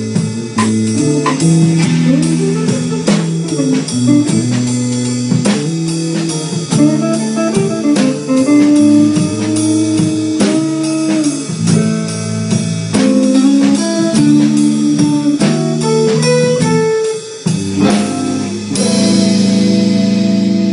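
Live band playing a slow blues: electric guitars trading lines over electric bass and a drum kit. Near the end the band lands on one long held chord with a high wash over it.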